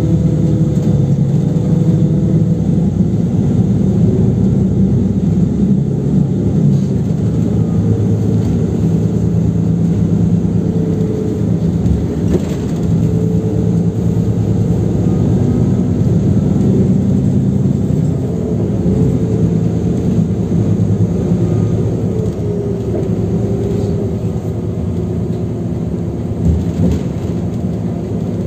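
City bus engine and road noise heard from inside the passenger cabin while the bus is under way: a loud, steady low rumble with an engine hum that drifts slightly in pitch, and one short knock near the end.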